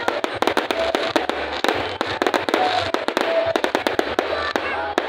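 Aerial fireworks exploding overhead in a rapid, irregular string of bangs, several a second, with crackling between them.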